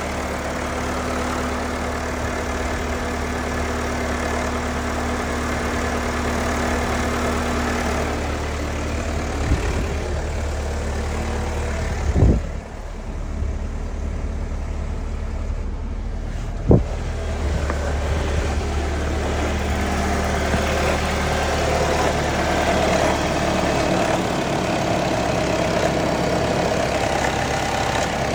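2021 Jeep Wrangler JL's 2.0L turbocharged four-cylinder idling steadily a couple of minutes after a cold start, an engine whose cold-start rattle the dealer traced to its tensioners. Two short sharp knocks come about 12 and 17 seconds in.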